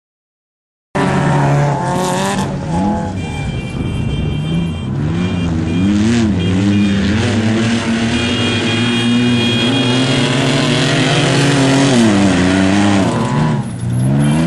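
Desert off-road race vehicles' engines running hard past the course, pitch rising and falling repeatedly as they rev through the terrain. The sound drops out completely for about the first second.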